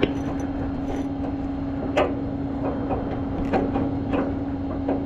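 Tow truck driving, heard from inside the cab: the engine drones at a steady pitch, with scattered knocks and rattles, the sharpest about two seconds in.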